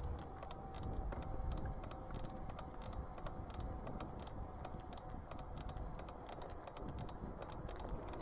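Riding noise from an e-bike: a steady low rumble of wind and road on the microphone, with many small clicks and rattles throughout. A faint steady whine sounds for the first half and then fades out.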